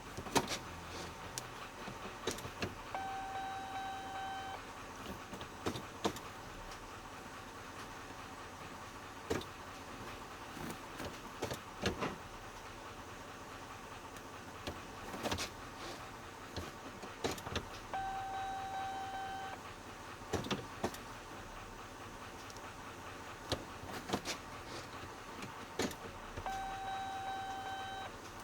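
Scattered small clicks and knocks of hand work on the dash wiring. A steady electronic beep of about a second and a half sounds three times.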